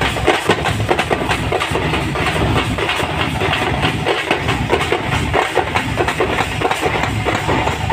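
A drum troupe of several stick-played drums, including large drums on stands and shoulder-slung drums, beating together in a fast, dense, unbroken rhythm.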